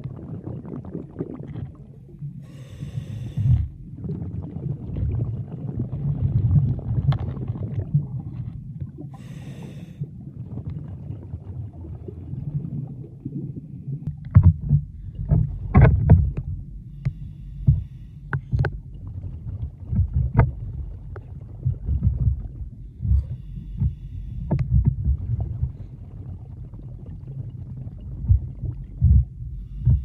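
Underwater sound picked up by a camera moving through shallow surge over seaweed-covered rock: a muffled low rumble of moving water, with frequent sharp clicks and knocks, most of them in the second half. Two brief hisses come in the first ten seconds.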